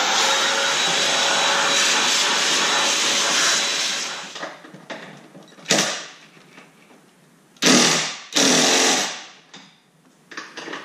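A small electric motor spins up, runs steadily for about four seconds and winds down, followed by several short bursts of noise about halfway through and near the end.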